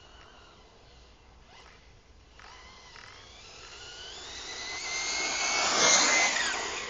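Reely radio-controlled car's motor whining as the car approaches at speed, growing louder and passing close about six seconds in, its pitch dropping as it goes by.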